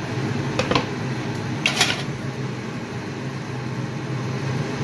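Cooking on a gas stove: a steady hiss and low hum under a frying pan of simmering mustard gravy. A few brief scrapes and clicks come about half a second in and again just before two seconds in, as a wooden spatula works in the pan.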